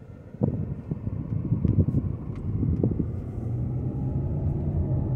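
Car driving slowly, heard from inside the cabin: a low, uneven rumble of road and wind noise comes up suddenly about half a second in, and settles into a steadier low hum past the middle.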